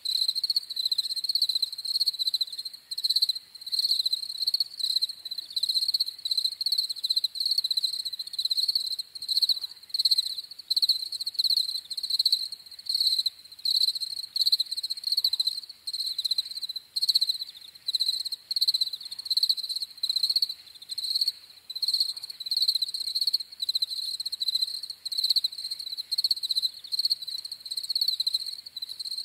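Field crickets (Gryllus campestris) chirping: a dense, steady run of short, high-pitched chirps from several insects overlapping.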